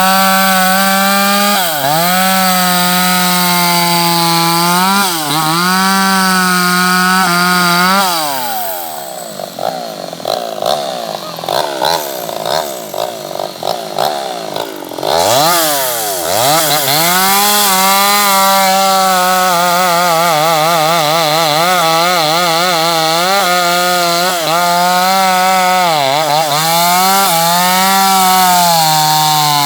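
Two-stroke chainsaw running at high revs, its pitch wavering and dipping as it cuts wood. About eight seconds in it drops to a low, uneven idle, then about fifteen seconds in it revs back up and cuts again.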